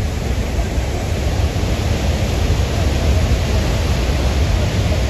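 Muddy river in flash flood rushing past, a loud, steady wash of water noise with a deep low rumble underneath.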